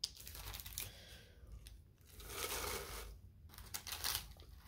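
Crinkle-paper shred and candy-bar wrappers rustling and crinkling in three bursts as snack bars are pushed into the packed box.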